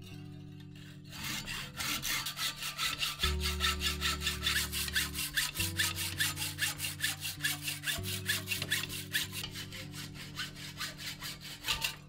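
Hacksaw cutting through a bicycle fork's steerer tube clamped in a saw guide, in fast, even back-and-forth strokes that start about a second in and stop just before the end.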